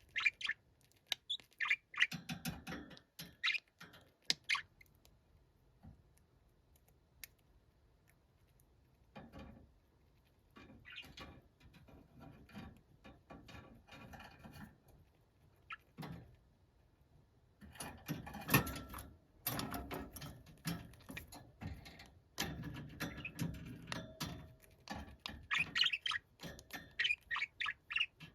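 Pet budgerigar chattering and chirping in scattered bursts, mixed with short clicks and knocks. The chatter thins out in the first part, then turns denser and busier from about eighteen seconds in.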